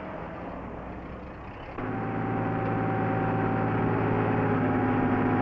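A crane's engine running at a steady speed. It cuts in abruptly about two seconds in over a quieter low rumble.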